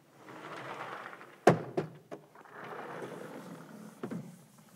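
Felt eraser rubbing across a chalkboard in long strokes, with a sharp knock about one and a half seconds in and a smaller knock near the end.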